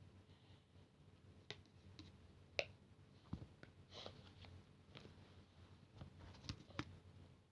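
Near silence with a scattering of faint, short clicks and taps, the sharpest about two and a half seconds in.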